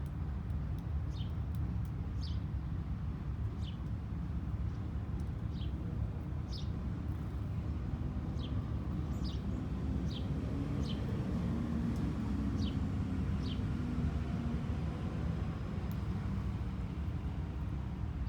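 A songbird gives about a dozen short, high chirps, each sliding downward, spaced roughly a second apart, which stop a few seconds before the end. Under them runs a steady low rumble, the loudest sound throughout.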